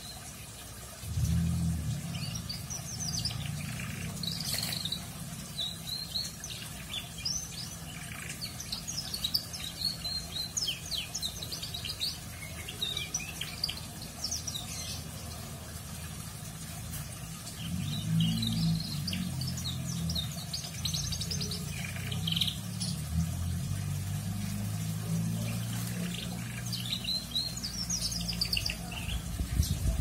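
Young domestic canary chattering in its soft, scratchy ngeriwik twitter: short clusters of quick chirps and trills, coming in bursts with gaps between. A steady low hum runs underneath for most of the time.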